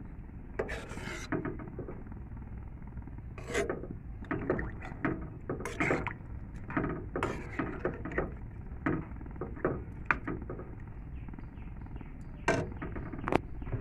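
Metal slotted spatula scraping and knocking against a large metal pan while stirring meat in watery broth, in irregular strokes.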